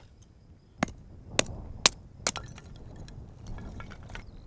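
Pieces of split wood knocking against each other as they are set down and stacked by hand: four sharp knocks in the first half, then lighter taps.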